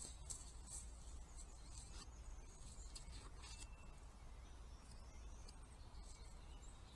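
Faint crackles and ticks of a roe deer stepping and nosing in dry leaf litter, mostly in the first half, over a low steady hum. A brief high chirp sounds about halfway through.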